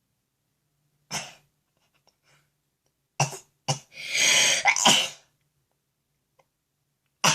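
A young girl sneezing and coughing in a run of short, sudden bursts, with a longer one about four seconds in. The sneezing is brought on by Vaseline-coated cotton swabs pushed into her nostrils.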